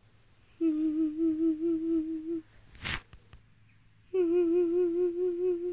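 A woman's pretend crying: two long, wavering hummed whimpers on a held pitch, the second starting about four seconds in, with a brief breathy noise between them.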